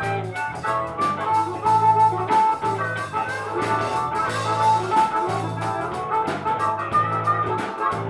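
Live electric blues band playing: an amplified harmonica solo, cupped against a handheld microphone, wails in sustained, wavering notes over a repeating bass riff, drums, guitar and keyboard.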